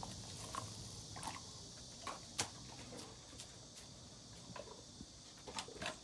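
Tibetan mastiff chewing a raw chicken carcass: faint, scattered crunches and clicks, with one sharper crack about two and a half seconds in.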